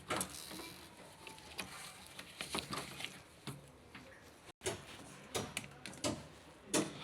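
Irregular clicks and light knocks from parts and tools being handled during a washing machine repair.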